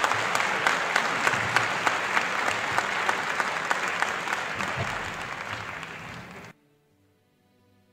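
Audience applause, many people clapping with individual claps standing out; it eases a little and then cuts off suddenly about six and a half seconds in.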